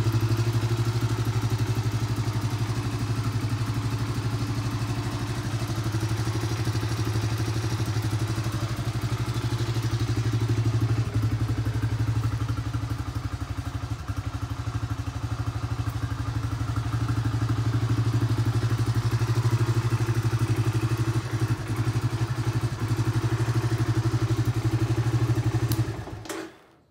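Honda Big Red 250 ATC's air-cooled four-stroke single-cylinder engine idling steadily on a cold start with a little choke. It is switched off about 26 seconds in and stops suddenly.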